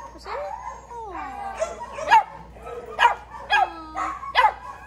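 Dogs in shelter kennels barking and whining: drawn-out whines that fall in pitch, and several sharp barks in the second half.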